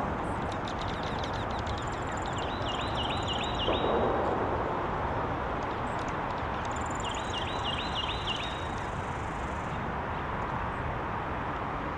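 A songbird sings the same phrase twice, about six seconds apart: quick high trilled notes, then a run of about six repeated looping notes. A steady background hiss runs underneath, with a brief rush of noise about four seconds in.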